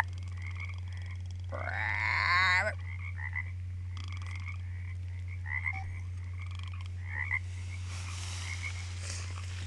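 Bullfrog giving one drawn-out, wavering call about a second and a half in, over a steady low hum. Faint short chirps come here and there, and a soft rustle starts near the end.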